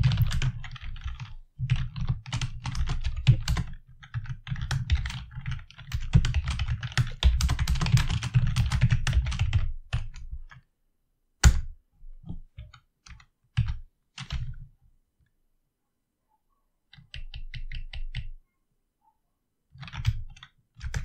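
Typing on a computer keyboard: a quick, continuous run of keystrokes for about ten seconds, then a few scattered key presses separated by short pauses.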